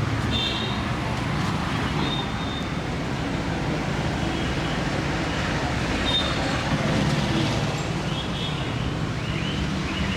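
Steady street traffic noise, a continuous rumble of passing vehicles, with a few short high tones scattered through it and faint voices.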